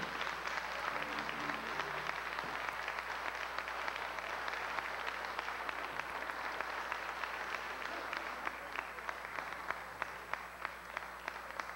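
Audience applauding, thinning toward the end into scattered single claps.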